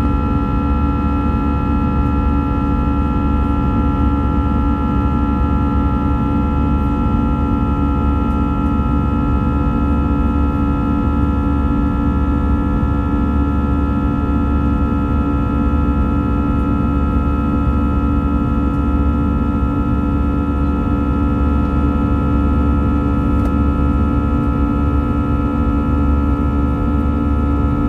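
Airbus A320 jet engines heard from inside the passenger cabin during the climb after take-off: a steady drone with several unwavering tones over a low rumble.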